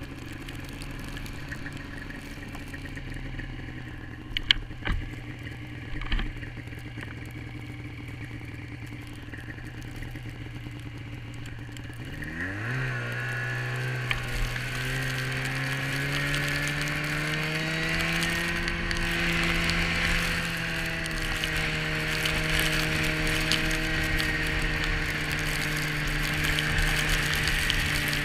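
A Polaris 550 snowmobile's two-stroke twin engine runs steadily at low speed, with a few sharp knocks around four to six seconds in. About twelve seconds in it revs up and holds a higher, louder note as the sled speeds up, with a rushing hiss of the track and snow over it.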